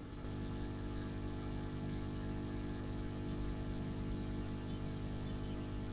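Steady low electrical hum made of several fixed low tones, a little louder from just after the start.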